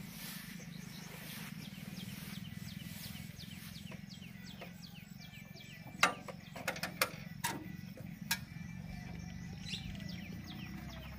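Massey Ferguson 1035 DI tractor's three-cylinder diesel engine running with a steady low hum, birds chirping over it, and a handful of sharp clicks about six to eight seconds in.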